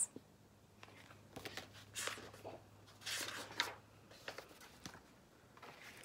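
A hardcover picture book being opened and its paper pages turned: a few faint, brief paper rustles.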